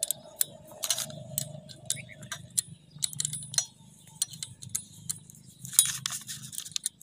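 Allen key clicking and scraping in the socket-head bolts that join a submersible pump to its motor, as each bolt is snugged down a little at a time: a string of light, irregular metal clicks and ticks.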